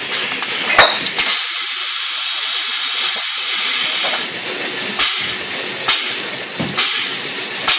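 CBK PI-6-6 portable inline bottle filler-crowner running: a steady hiss for about three seconds near the start. Sharp clanks and clicks of its mechanism and the glass bottles come about once a second after that.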